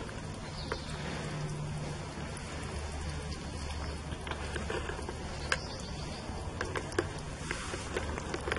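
Hedgehog eating dog food from a bowl: an irregular run of small wet smacking and crunching clicks, with two sharper clicks past the middle, over a low steady background hum.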